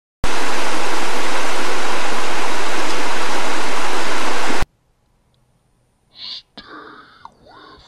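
A loud, even burst of static hiss, switching on abruptly and cutting off just as abruptly after about four and a half seconds. Faint scattered sounds follow near the end.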